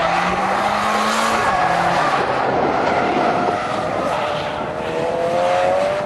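Drift cars sliding sideways through a corner: engines held at high revs, rising in pitch near the end, over the steady hiss and squeal of spinning tyres.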